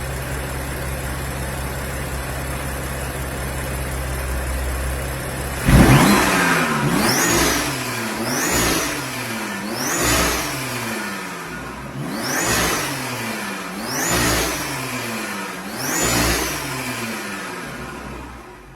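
BMW M4's twin-turbo inline-six, tuned with a hybrid turbocharger, idling steadily and then revved hard about six seconds in. It is then blipped six times, each rev rising and falling about every one and a half to two seconds, before it fades near the end.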